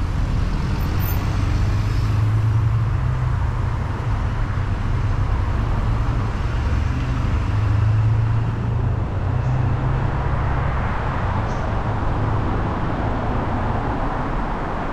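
Road traffic: a steady low rumble of passing cars and buses, swelling and easing as vehicles go by.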